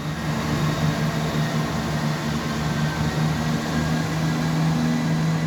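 Diesel engines of a Class 170 Turbostar diesel multiple unit under power as it pulls out, putting out exhaust clag. A steady low drone with a steady hum-like tone over it.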